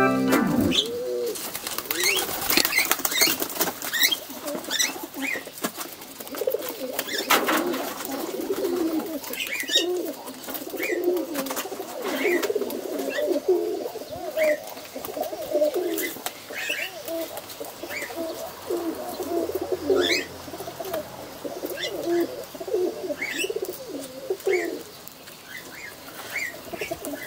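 Domestic pigeons cooing over and over, low rolling coos following one another with hardly a break, with short high chirps scattered among them.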